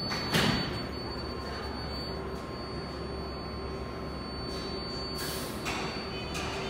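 R188 subway train standing at the platform with a steady low equipment hum. A sharp thump comes about a third of a second in, and two short bursts of air hiss come near the end.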